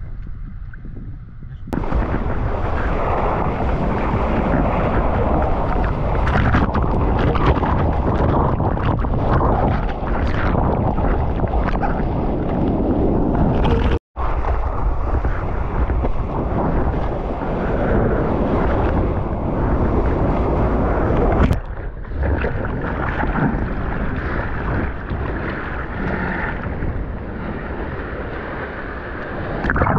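Surf and whitewater rushing, with wind buffeting a GoPro action camera's microphone while surfing: a loud, steady roar of noise that jumps up about two seconds in and drops out for an instant about halfway.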